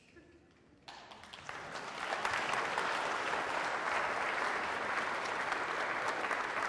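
Audience applauding: after a brief hush it breaks out about a second in, swells over the next second and then carries on steadily.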